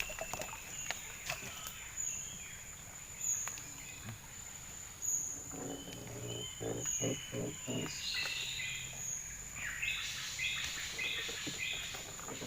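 Insects droning with a steady high-pitched whine, with birds calling over it. From about ten seconds in, a chirping call repeats about twice a second.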